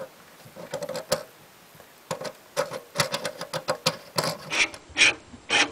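Metal parts of a brass kitchen sink strainer being handled: irregular clicks and short scrapes as the gasket, washer and threaded mounting ring are slid up and spun onto the strainer body's threads by hand.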